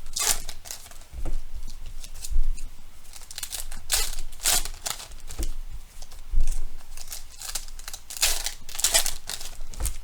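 Foil wrappers of 2022 Bowman Draft trading-card packs being torn open and crinkled by hand, in several short bursts of tearing and rustling.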